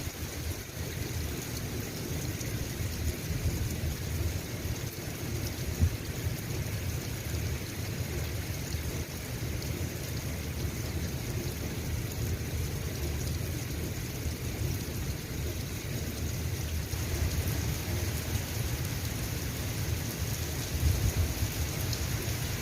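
Steady rain falling, an even hiss with a continuous low rumble underneath.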